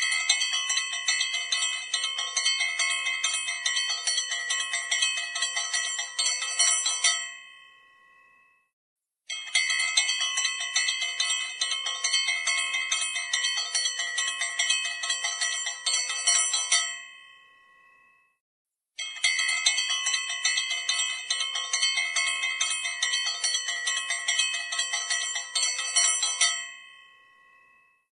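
Small puja bell rung rapidly and continuously in three long peals of about seven seconds each. Each peal ends in a ringing fade, with about two seconds of silence between peals.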